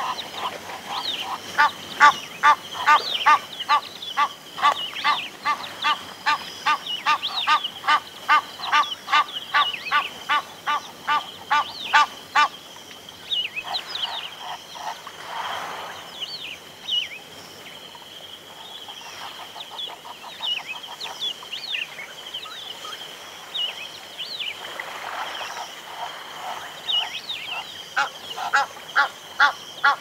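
Several Egyptian geese honking in a fast, even series of about three calls a second for the first twelve seconds, falling quieter, then starting up again near the end. Larks chirp high above them and insects keep up a steady high-pitched buzz throughout.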